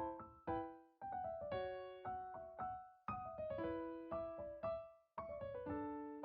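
Solo piano music: chords and melody notes struck and left to ring out, a few notes a second.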